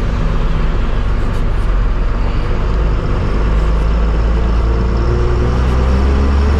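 A bus's engine running with a heavy, steady low rumble and road noise, heard from inside the front cabin. A faint tone rises slightly in pitch over the last couple of seconds as the bus picks up a little speed.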